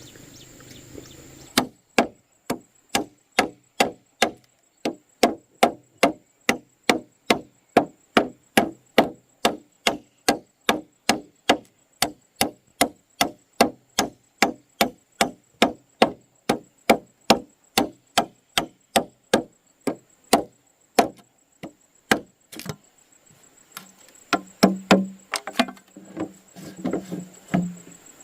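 Wood being chopped with a blade: steady, even strokes about two to three a second, then after a short pause a quicker run of uneven knocks near the end.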